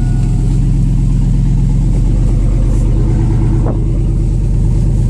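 Chevrolet 2500 pickup's 6.0-litre V8 engine running steadily at low speed, heard from inside the cab as the truck crawls along a dirt track.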